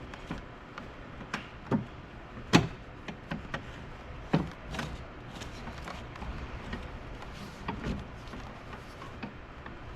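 Irregular clicks and knocks from a Jeep Grand Cherokee's interior door panel and its parts being handled and worked back into place, with the loudest knock about two and a half seconds in.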